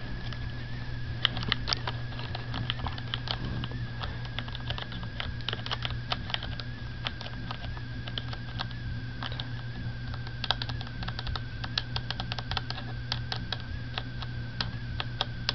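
Typing on a computer keyboard: irregular key clicks, sometimes in quick runs. A steady low hum and a faint high whine sit underneath.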